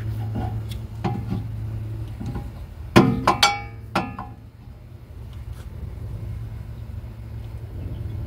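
Metal clinks and clanks of disc brake pads being handled and pulled from the caliper bracket, with a loud cluster of ringing clinks about three seconds in. A steady low hum runs underneath.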